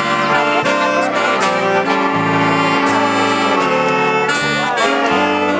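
Wind band of saxophones and brass playing a tune live, full sustained chords, with a bright crash marking the beat about every second and a half.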